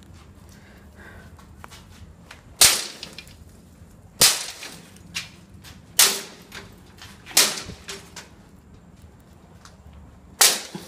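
A stone being struck hard against a metal lattice grille door, five loud sharp clanks about one and a half to two seconds apart, with fainter knocks between them. The door is jammed shut from long disuse and is being forced open.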